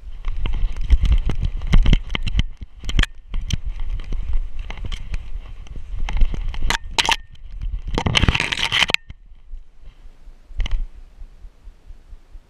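A dog moving through snow and brush, heard from a camera strapped to its back: paw steps in snow, twigs and branches scraping past, and low rumbling bumps from the mount. A loud brushing burst comes about eight seconds in, and it goes quieter for the last few seconds.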